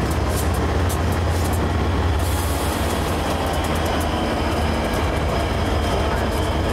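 Union Pacific diesel-electric locomotives rolling past at close range, their engines running with a steady low rumble.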